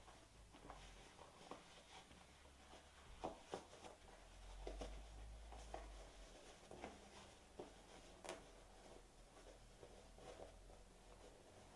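Near silence with faint, scattered rustles and soft taps of hands turning and handling a fabric slipper with a fleecy lining, over a low room hum.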